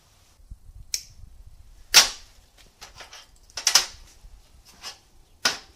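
A few sharp knocks and clacks of hand tools being handled and set down on a steel welding table, the loudest about two seconds in.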